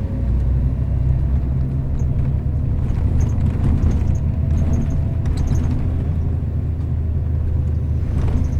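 Inside a moving bus: the steady low rumble of the engine and road, with a faint steady whine and a few faint clicks about halfway through.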